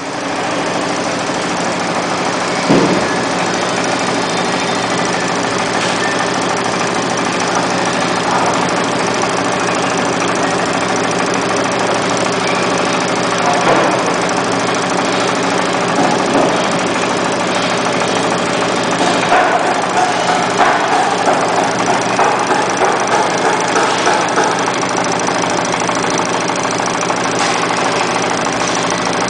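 Yitai high-speed cord knitting machine running steadily: a continuous mechanical whir from its knitting heads with steady tones in it. There are a few brief knocks, and the sound grows busier in the second half.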